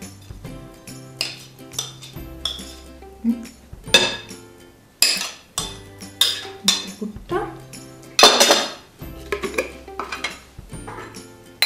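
Kitchen utensils clinking and scraping at irregular intervals: a table knife scraping butter off a ceramic plate into a glass mixing bowl, with the metal whisk knocking against the glass and the plate set down, over background music.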